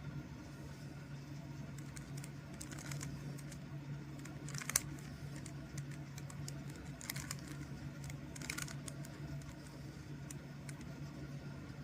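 Plastic Rubik's Cube layers being turned by hand: irregular clicking and short rattles, sharpest a little before halfway. A steady low hum sits underneath.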